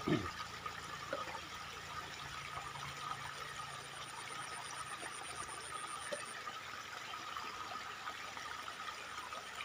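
Steady sound of a small river flowing, an even rushing hiss with a faint steady high hum over it. A single short falling sound comes right at the start and is the loudest moment.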